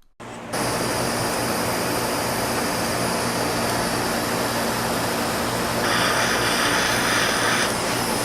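Steady rush of blowing air over a low motor hum, likely a hot-air blower heating the engine case to free its bearings; the rush grows brighter for a moment about six seconds in.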